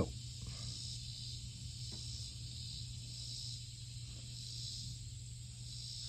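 Faint outdoor insect chorus: a high, steady buzz that swells and fades in waves, over a steady low hum, with one faint tap about two seconds in.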